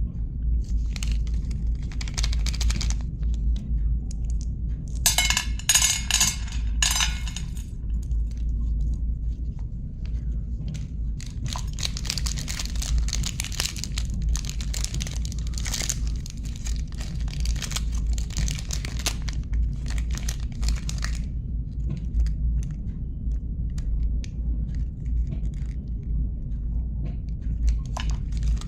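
Chocolate bar wrappers being crinkled and torn open in irregular bursts, over a steady low hum.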